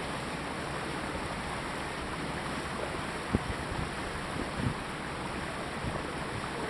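Steady, even rushing noise aboard a sailboat under engine power: water moving along the hull and air over the microphone, with a faint low engine hum beneath. A couple of soft knocks come about halfway through.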